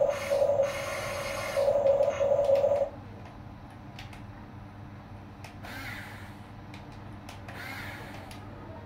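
Huina 1550 RC excavator's small electric gear motors whining in several short pulses as the boom and bucket are raised, cutting off about three seconds in. After that only a faint motor whir, with two brief scrapes as the bucket digs into the sand.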